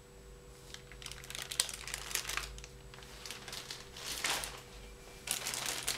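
Clear plastic bags wrapped around toy figures crinkling in irregular rustles as they are handled, loudest about four seconds in and near the end, over a faint steady hum.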